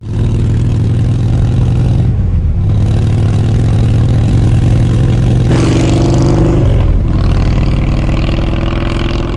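Motorcycle engine running, its note rising briefly about five and a half seconds in and dropping lower about a second later.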